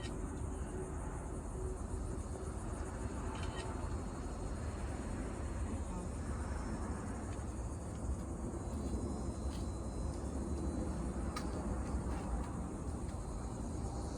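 Steady high-pitched chorus of insects singing in wetland vegetation, over a low rumble of breeze on the microphone, with a few faint clicks.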